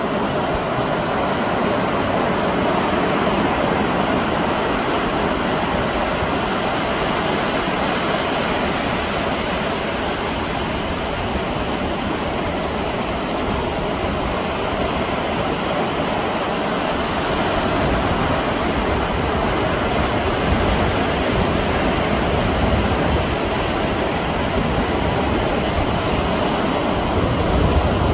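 Sea surf washing onto the shore as a steady rushing noise, with low rumbles a little over halfway through and again near the end.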